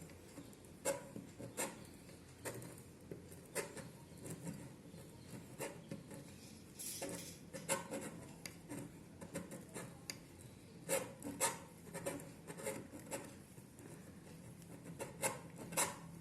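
Hand tube cutter being rotated around a metal tube and tightened a little at a time, its cutting wheel scraping and clicking irregularly as it scores into the tube wall.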